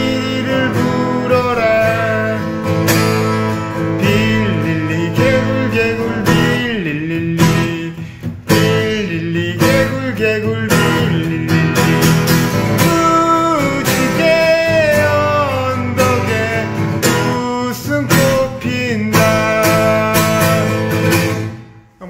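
Steel-string acoustic guitar played with a pick: a melody over ringing chords, with a short break about a third of the way in. It stops just before the end.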